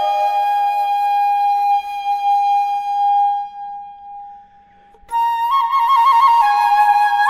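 Background music: a solo melodic line holds one long note that fades away, then a new phrase with quick trills starts about five seconds in.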